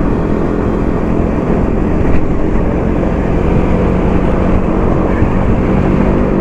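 Motorcycle running steadily while being ridden, a continuous low rumble with a faint steady engine tone underneath.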